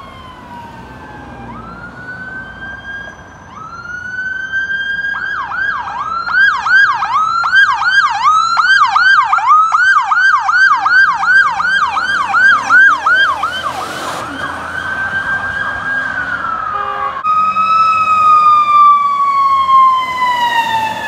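Emergency vehicle sirens on a responding police SUV and fire rescue truck. A wail rises, then switches to a fast yelp of about two to three cycles a second for some eight seconds, then goes back to a held wail. After an abrupt change, a lower wail slowly falls in pitch as the fire rescue truck passes.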